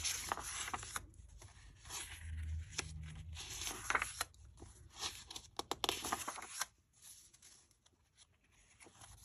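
Sheets of a 6x6 patterned scrapbook paper pad rustling as they are flipped over one after another, several short rustles with light ticks from the paper edges. The rustling stops about two thirds of the way through and it goes nearly quiet.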